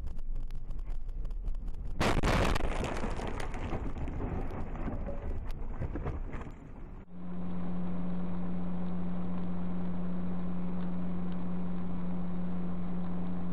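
Dashcam audio of road and wind noise, then about two seconds in a sudden loud crash as the car collides with a swerving semi-trailer truck, followed by a noisy rumble that fades over the next few seconds. Near the middle the sound cuts to a steady in-car drone with a low hum.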